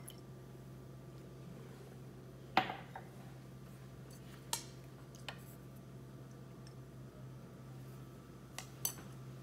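A few separate sharp clinks of a spoon against a drinking glass as dye and bleach are stirred, the loudest about two and a half seconds in, over a steady low hum.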